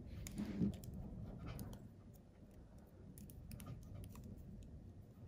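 Light, irregular clicks and taps of clear plastic nail swatch sticks knocking together as they are picked up and gathered into a bundle in the hands.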